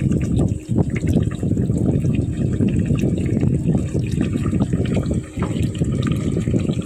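Pan of tofu cubes cooking in oil with soy sauce and vinegar, bubbling and crackling steadily.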